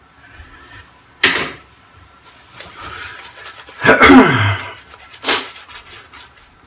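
Shaving brush being worked over lathered stubble, with short sharp brushing strokes about a second in and after five seconds, and a louder short vocal sound falling in pitch about four seconds in.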